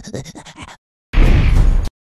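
Cartoon sound effects: a quick stutter of short, fading pulses in the first second. From about a second in, a loud, noisy rumble with heavy bass, cut off briefly just before the end.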